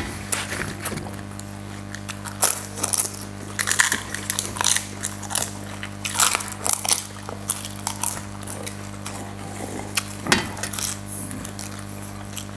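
Crisp panipuri shells being bitten and chewed whole by two eaters, giving irregular crunches, over a steady low hum.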